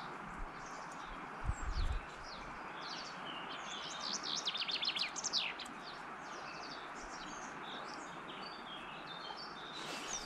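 Songbirds singing in quick chirps and trills, busiest about four to five seconds in, over the steady rush of flowing river water. A short low rumble about one and a half seconds in.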